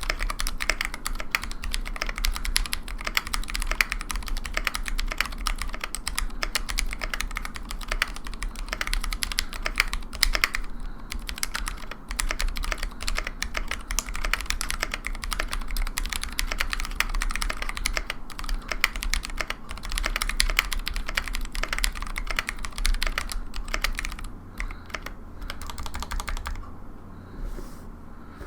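Fast, continuous typing on a custom Tofu65 mechanical keyboard with lubed Zealios V2 62g tactile switches on a brass plate and GMK keycaps: a dense stream of keystroke clacks. There are a couple of short pauses, and the typing thins to a few strokes near the end.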